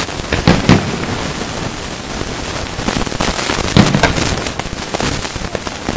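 Aerial firework shells bursting in sharp bangs, a close pair about half a second in and another pair near four seconds, over a steady hiss.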